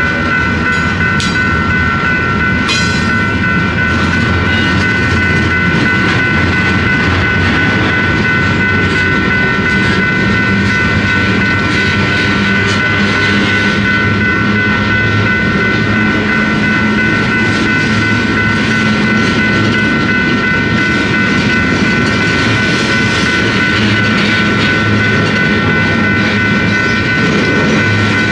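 Empty Union Pacific flatcars of a work train rolling past at a grade crossing: steady wheel and rail rumble with some clicking and a couple of sharp clanks early on. Over it the crossing bell rings steadily.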